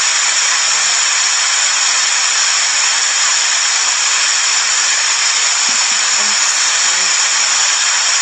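Steady, loud static hiss with no change in level, and faint muffled sounds about six seconds in.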